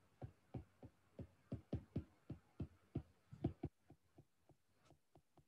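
Faint taps of a stylus on a tablet screen during handwriting, about three or four a second, getting much fainter after about three and a half seconds.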